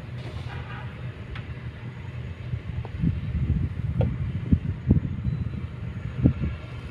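Kobelco excavator's diesel engine running steadily, with a series of sharp knocks and clunks from about three seconds in as the machine works.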